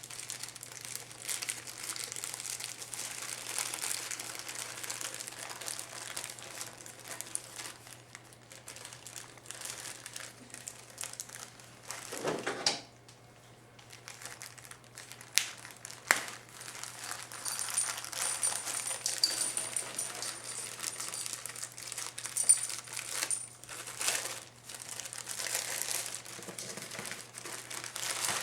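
Plastic parts bags from a transmission rebuild kit crinkling and rustling as they are handled and opened, with a few sharp clicks and a brief pause about halfway through.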